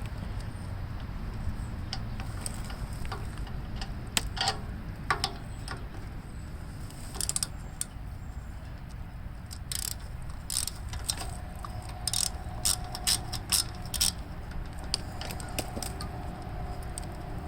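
Hand tools clicking and clinking against metal in a series of irregular sharp clicks, denser in the middle, as the nuts holding the old foot starter button on a Gravely tractor are worked loose. A steady low rumble runs underneath.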